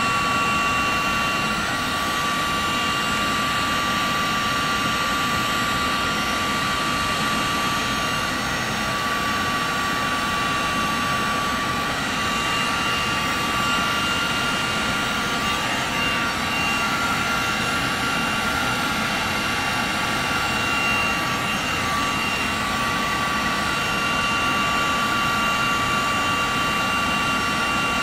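Handheld electric heat gun running steadily while shrinking heat-shrink tubing: a constant rush of blown air with a steady high motor whine over it.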